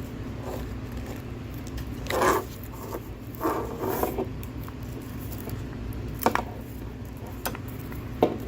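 Thin plastic protective film being peeled off an electric kettle: two short rasping peels about two and three and a half seconds in, then a couple of sharp clicks, over a steady low hum.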